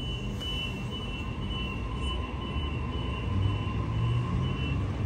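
Waratah (A set) double-deck electric train pulling out and moving away: a low rumble of the train on the rails that swells a little past halfway, with a thin steady high whine that stops near the end.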